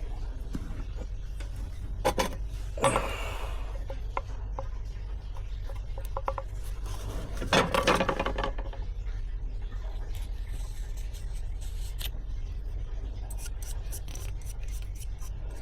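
Scraping and rubbing on metal, in two louder bouts, with scattered clicks and a run of quick light taps near the end, over a steady low hum.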